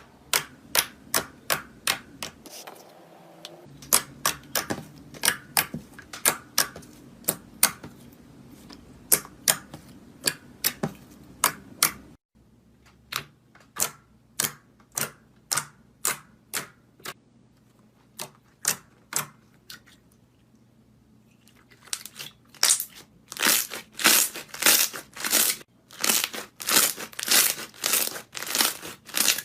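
Slime being squeezed and pressed by hand, giving a series of sharp clicking pops, about two a second. There is a sudden break about twelve seconds in, and the pops come faster and louder over the last several seconds.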